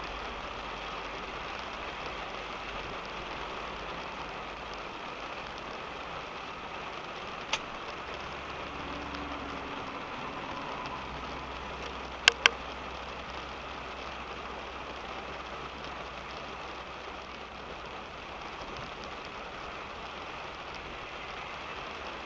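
Rain falling on a moving car, heard from inside the cabin: a steady hiss of rain over a low road rumble. A single click about a third of the way in, then two sharp, louder clicks in quick succession just past the middle.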